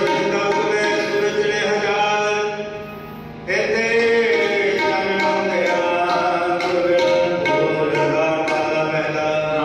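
Sikh kirtan: devotional singing over harmonium, with tabla strokes keeping a steady beat. The sound dips briefly about three seconds in, then resumes.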